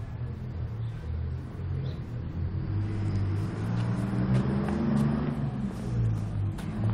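A car engine running, a low steady rumble that grows louder over the second half.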